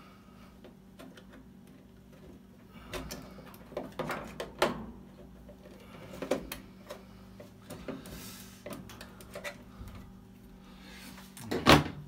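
Scattered clicks, taps and small knocks of hands working at a dryer's timer/selector switch and its wire connectors on the open control console, with a louder knock near the end.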